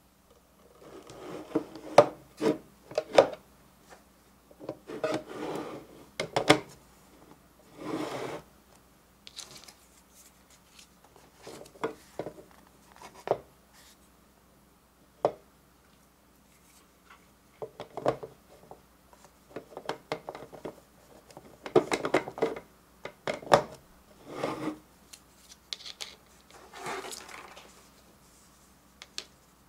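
Hard plastic lunch boxes shaped like freight containers being handled and stacked: short bouts of plastic rubbing and scraping against plastic, with sharp clicks and taps, separated by quiet pauses.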